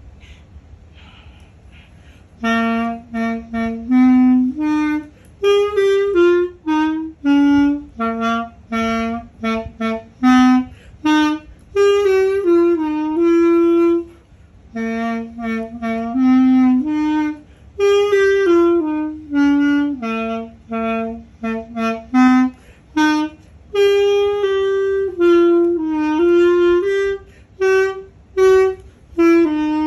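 Unaccompanied clarinet, played with a synthetic reed, starting a melody about two and a half seconds in: a single line of short separated notes grouped in phrases, with brief breaths between.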